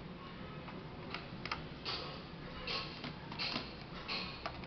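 Laptop parts being handled and worked on during disassembly: scattered sharp clicks and short scraping rasps of hard plastic and metal, about one every half second to a second.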